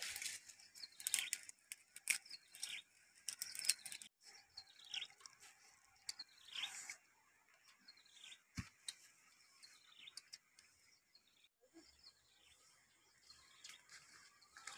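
Birds chirping intermittently and faintly, among scattered light clicks, with one soft knock about eight and a half seconds in.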